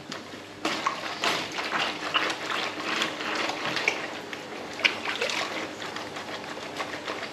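Water running and splashing, starting about a second in, over a faint steady hum.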